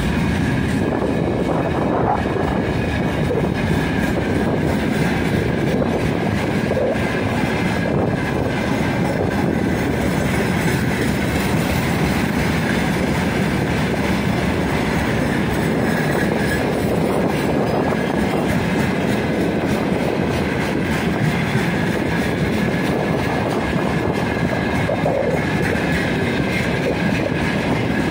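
Freight wagons (open gondolas, then tank cars) rolling past on the adjacent track: a steady rumble of steel wheels on rail with clickety-clack over the rail joints and a faint high steady ring.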